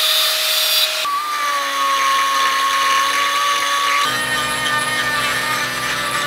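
An angle grinder's disc grinding the end of a steel tube for about a second. Then a die grinder whines at high speed as its carbide burr shapes the coped end of the 1.5-inch tube, with a rougher, lower grinding joining in about four seconds in.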